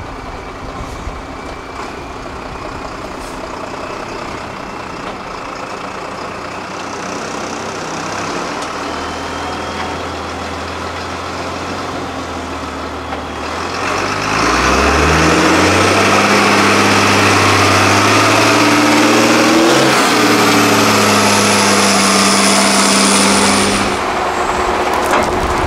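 Diesel engine of a MAN 6x6 trial truck working in low gear, then revved hard about halfway through as it pulls up out of a pit, staying at high revs until it drops back near the end.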